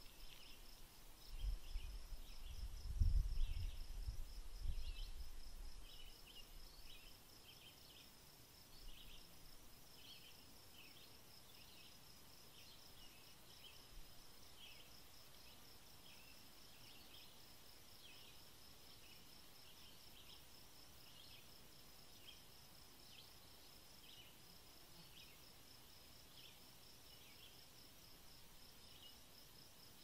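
Faint outdoor ambience: a steady, rapidly pulsing high insect trill with scattered short chirps over it. A low rumble comes and goes in the first few seconds.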